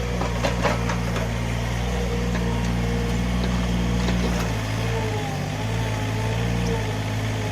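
Small backhoe (mini excavator) engine running under work, with a wavering hydraulic-type whine over it and a few knocks in the first second; the engine note sags for a couple of seconds past the middle, then picks up again.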